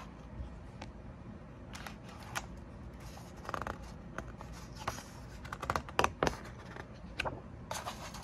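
A picture book's page being turned and smoothed flat by hand: paper rustling and scraping in short clusters, busiest around the middle and again near the end.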